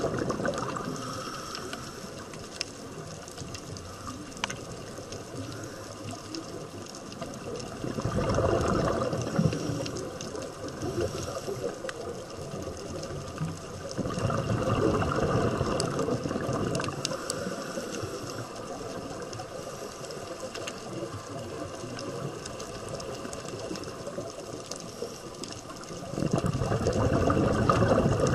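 Underwater reef sound: a steady wash of water noise, rising three times, several seconds apart, into a louder gurgling rush of the kind made by a scuba diver's exhaled bubbles streaming past the camera.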